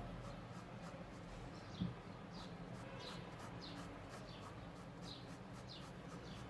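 Faint pencil strokes on drawing paper, short light scratches at about two a second, with one soft knock about two seconds in.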